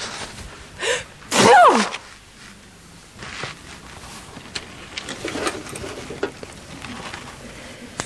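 A woman sneezes once: a short in-breath just before a second in, then a loud 'ah-choo' whose pitch falls sharply. Faint small clicks and rustles follow.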